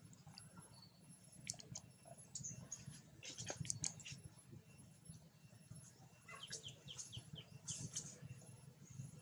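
Faint outdoor ambience with a steady low hum and scattered soft clicks, and a quick run of short, high chirps about six and a half seconds in.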